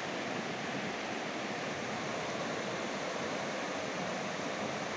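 Fast-flowing river current rushing over rocks: a steady, even rush of water.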